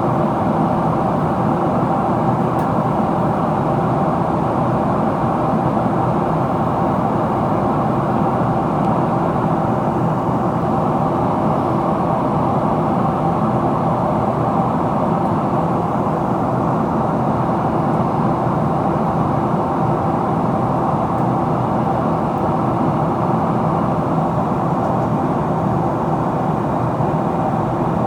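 Steady cabin noise inside a Boeing 777-300ER in descent: rushing airflow and the drone of its GE90-115B engines, with a faint steady hum.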